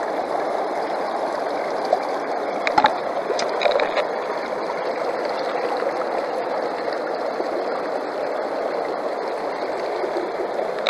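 Stream water rushing steadily through and around a Keene aluminum sluice box set in the river. A few light clicks and taps come about three to four seconds in.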